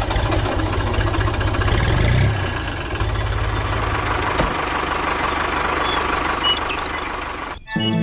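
A tractor engine running with a fast, even knocking pulse. It shifts in tone about two seconds in and again halfway through, then cuts off abruptly near the end.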